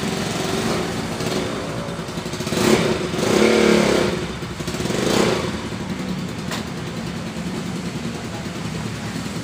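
Motorcycle engine running, revved up briefly three times in the first half, then settling back to a steady idle.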